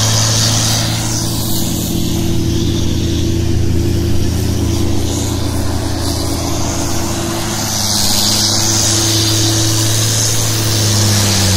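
Doosan wheel loader's diesel engine running steadily as it drives a front-mounted snowblower, a constant low hum with the hiss of thrown snow over it.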